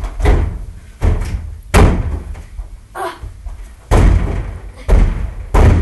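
A series of about six loud, heavy thumps and bangs at irregular intervals, each one sudden with a short decay.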